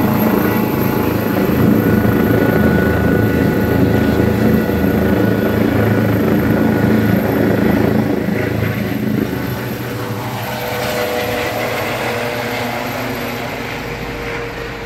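Trauma helicopter flying overhead, its rotor and engine sound steady and loud at first. About nine seconds in it drops off and then fades slowly as the helicopter flies away.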